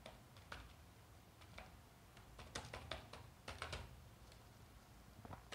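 Computer keyboard typing: faint, irregular keystrokes, some in quick runs of two or three.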